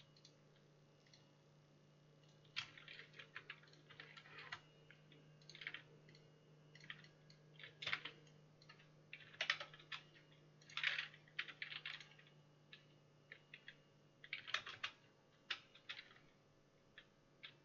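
Computer keyboard being typed on in irregular bursts of clicks, starting a couple of seconds in and stopping shortly before the end, over a faint steady low hum.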